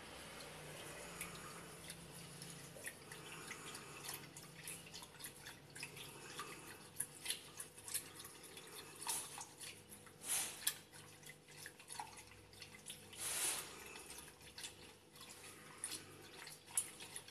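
Wire whisk beating a raw egg in a ceramic bowl: quick, irregular light clicking of the wires against the bowl with wet splashing of the egg, a few louder strokes partway through.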